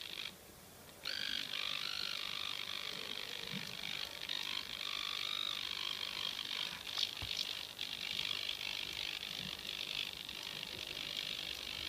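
Music from a phone played through a homemade LM358 breadboard amplifier into a small speaker, coming out thin and tinny with almost no bass. It cuts out briefly near the start, then plays on.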